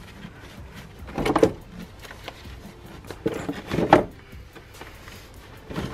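The heavy stock battery of a Ford Focus RS being lifted up and out of its plastic tray: knocks and scrapes of the battery case against the tray and engine-bay parts, loudest about one and a half seconds in and again about four seconds in.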